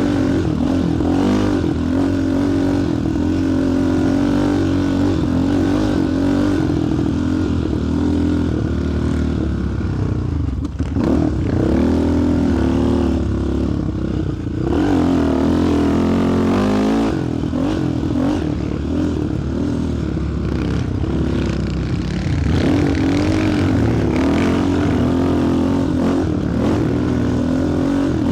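Sport quad's single-cylinder four-stroke engine under way, its pitch rising and falling as the throttle is worked and gears change, with brief drops in revs about 11 and 15 seconds in.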